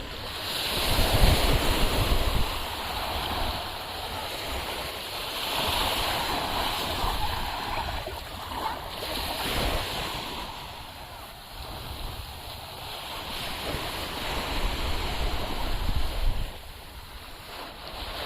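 Sea surf washing onto the beach, the noise swelling and fading every few seconds as waves come in, with wind buffeting the microphone.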